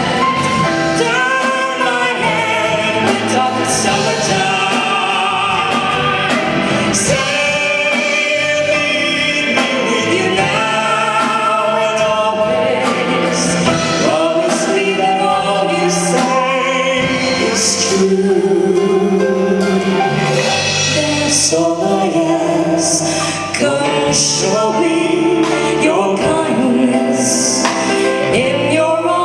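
Live band music with singing, a duet from a medley of English love songs, with cymbals splashing now and then.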